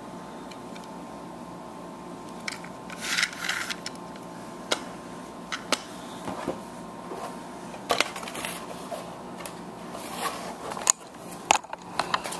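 Hands handling plastic toy parts and packaging: scattered small clicks and taps, with a brief rustle about three seconds in and another near eight seconds, over a steady low hum.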